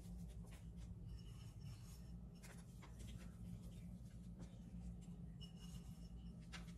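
Faint rustling and light clicks of chopped nuts being pinched from a small glass container and scattered by hand, over a steady low hum.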